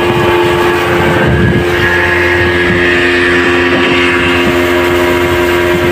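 Small motorboat's outboard engine running at a steady pitch while under way, with a low rush of wind and water around it.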